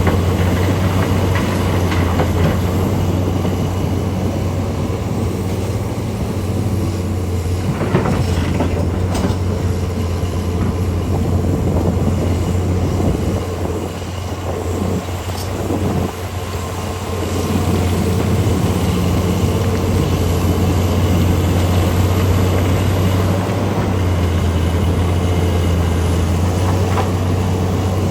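Heavy diesel mining machinery running with a steady deep drone that eases off briefly about halfway through, with a couple of sharp knocks around eight and nine seconds in.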